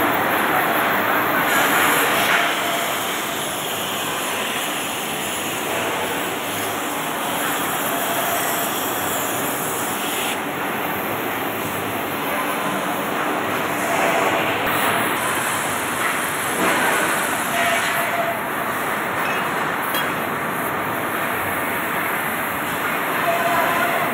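Oxy-fuel gas cutting torch hissing steadily as its cutting jet burns through a thick iron billet, blowing out molten slag and sparks.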